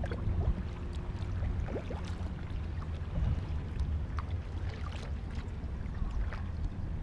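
Kayak paddle dipping into calm floodwater, with a few small splashes and drips, over a steady low rumble.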